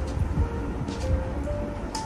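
Background music: a simple melody of single held notes stepping up and down.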